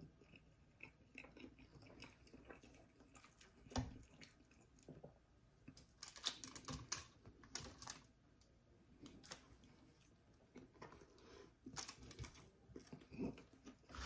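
Near silence broken by faint scattered clicks and crinkles: mouth sounds of chewing and hands handling a foil-wrapped sandwich.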